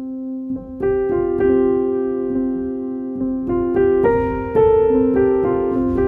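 Background music: slow piano, single notes and chords struck every half-second or so and left to ring.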